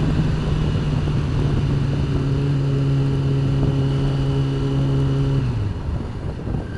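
Motorcycle engine running at a steady cruise, with wind noise on the microphone. The engine note sinks slightly, then drops away and fades about five and a half seconds in.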